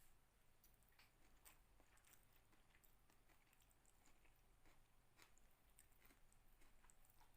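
Faint chewing: soft, irregular mouth clicks and small crunches, several a second, over a low steady hum.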